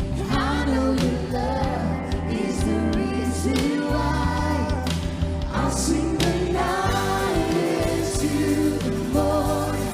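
Live contemporary worship music: a band with steady bass and cymbals playing under sung melody with group vocals.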